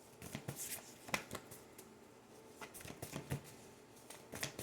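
A deck of cards being shuffled and handled, with soft flicks and taps in a few short spurts.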